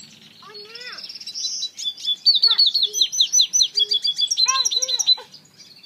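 African citril finch × canary mule singing: scattered chirps and a buzzy note, then from about two seconds in a loud, fast run of repeated high notes and downward sweeps that stops shortly before the end.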